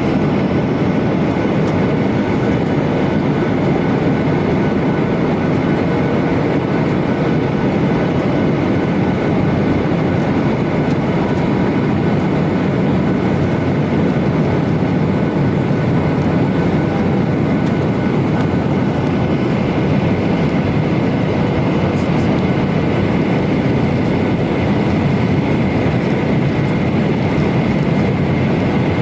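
Steady cabin noise of a Boeing 737-900ER airliner: a constant rumble with a faint steady whine from its CFM56-7B jet engines, with no change in level.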